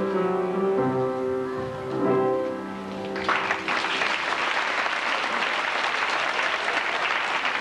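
Closing held chords of a stage song sung by a children's chorus with accompaniment, ending about three seconds in; then the audience applauds steadily.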